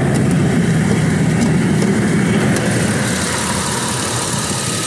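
2013 BMW X5's turbocharged engine idling roughly under the open hood, a sound called terrible, the engine vibrating and a vacuum leak suspected. The low rumble of a passing jet airliner overhead lies over it, easing about three seconds in.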